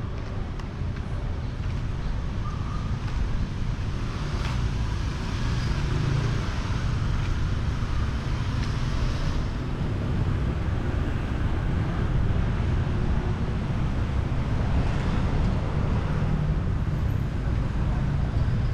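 Street traffic running steadily past, with wind buffeting the microphone.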